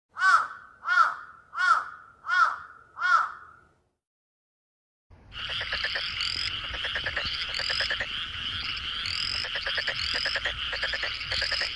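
Five loud calls about 0.7 s apart, each rising and falling in pitch. After a short silent gap, a dense chorus of frogs croaking starts about five seconds in and carries on steadily.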